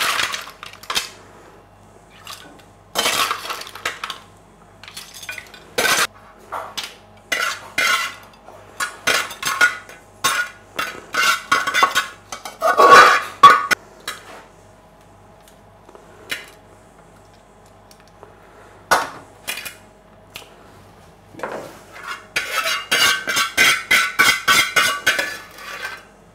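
A metal spoon scraping and clinking against a frying pan full of mussels, clams and spaghetti as the seafood pasta is served out onto a plate, in irregular clatters with pauses between. Near the end comes a quick run of scrapes as the pan is tipped and emptied onto the plate.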